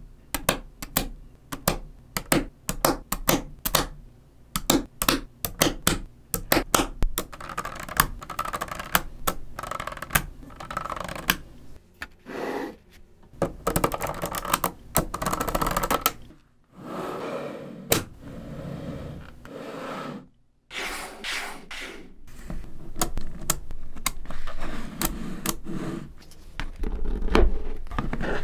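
Small neodymium magnetic balls clicking and rattling as they snap together, with sheets of balls pressed onto and peeled off a block built of them. Quick runs of sharp, separate clicks in the first several seconds give way to denser rattling, broken by two short pauses.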